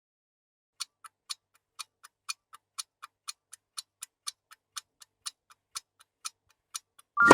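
Clock-style ticking, sharp and fast at about four ticks a second, alternating louder and softer, like a quiz countdown timer. It breaks off near the end into a sudden bright chime-like ding.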